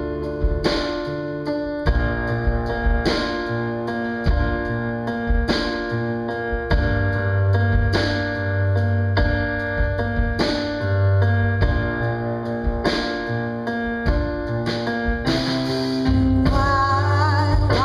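Instrumental introduction of a song: chords on guitar and keyboard struck on a steady beat over a bass line. A voice comes in singing near the end.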